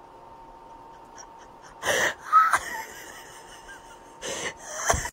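A person's breathy, wheezing laughter in a few short bursts, about two seconds in and again near the end.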